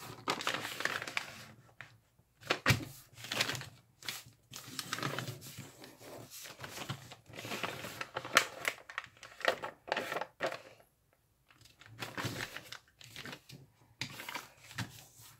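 Origami paper rustling and crackling as it is folded and creased by hand, in irregular strokes with a couple of brief pauses: repeated pleat folds dividing the sheet into sixteenths.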